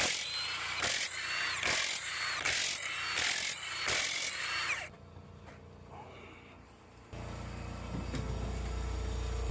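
A power tool, typical of a tire technician's impact wrench, is triggered in about six short bursts, each with a whine that drops in pitch. About seven seconds in, a steady low hum starts and runs on.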